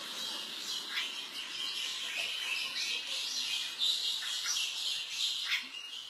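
Lovebird chick giving short, high squawks several times while held in the hand and having its eye wiped, over a steady hiss.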